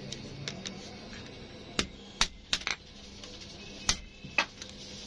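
Irregular sharp metal-on-metal taps and clinks of a small steel tool against a truck clutch disc, about seven of them starting about two seconds in.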